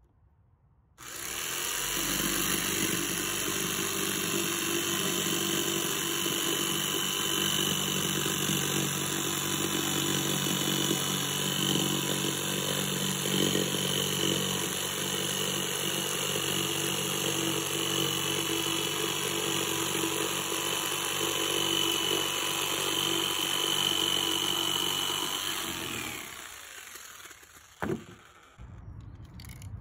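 Jigsaw cutting through a sheet of OSB board, starting about a second in and running steadily, then winding down and stopping near the end. A single sharp click follows shortly after.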